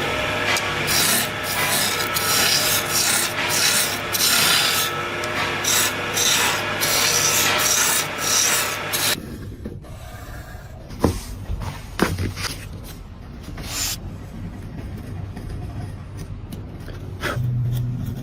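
Rhythmic scraping strokes of a hand tool working wood, a few strokes a second, for about nine seconds. It then cuts to a quieter stretch with two sharp taps, and a low hum starts near the end.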